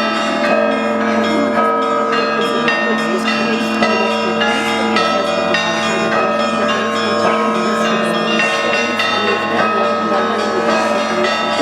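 Russian Orthodox church bells ringing in a continuous peal: many bells of different pitches are struck in quick succession over the steady hum of a large low bell.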